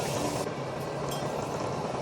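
Food cooking in a pot over the heat, a steady hiss of sizzling and bubbling.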